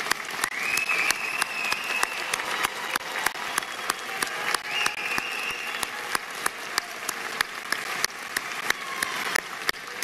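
Audience applauding steadily, with single sharp claps standing out from the general clapping.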